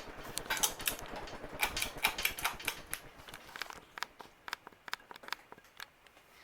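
Palm Air ceiling fan running, with fast, uneven clicking and knocking that thins out after about three seconds.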